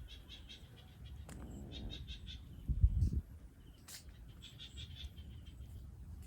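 Rapid runs of high chirps, each run lasting under a second, heard three times, with a loud low thump about three seconds in.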